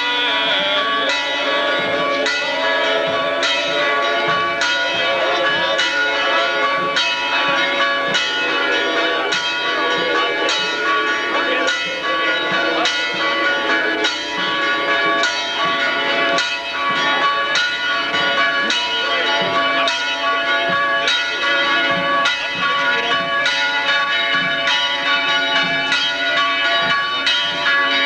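Church bells ringing in a steady peal, struck over and over a little more than once a second, their tones ringing on and overlapping.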